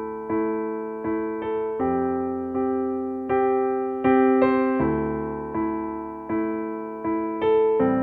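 Soft piano music: single notes and chords struck at an unhurried pace, each ringing and fading before the next.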